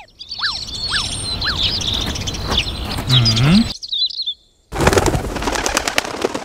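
Park bird sound effects: birds chirping, with three short rising-and-falling chirps early on. After a brief gap, about five seconds in, a flurry of rapid wing flaps as a flock of pigeons takes off.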